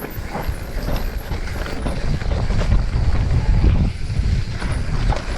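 Mountain bike riding fast down a dirt trail: a heavy wind rumble on the microphone, with tyre noise and rattling clicks and knocks from the bike over the rough ground.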